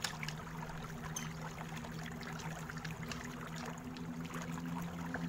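Steady low background hum, with a few faint ticks and scrapes of a small screwdriver undoing the laptop battery's screws.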